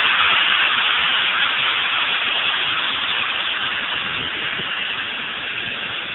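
Loud steady hiss of steam escaping from steam locomotive LMS 8F 8624, fading slowly, then cutting off suddenly near the end.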